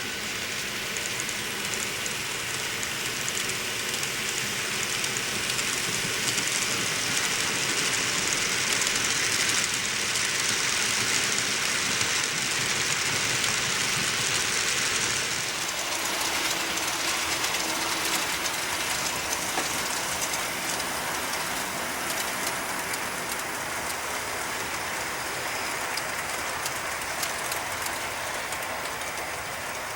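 Model train without an on-board sound system running along the track: wheels rolling and clicking over the rail joints. The sound is louder through the middle and drops back about halfway through as the train moves on.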